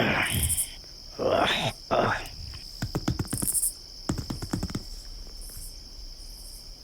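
Crickets chirping steadily as a night backdrop. Over it come three short throaty vocal sounds in the first two seconds, then two spells of rapid rattling clicks around the middle.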